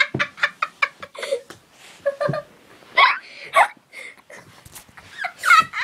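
A girl laughing hard: a quick run of short laugh bursts in the first second, then scattered, breathless bursts of laughter with short pauses between them.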